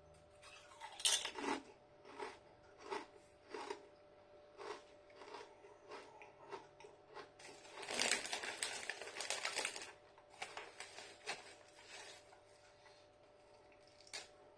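Hand-cooked potato crisps crunching as they are bitten and chewed: a string of short, crisp crunches, thickest for a couple of seconds about eight seconds in.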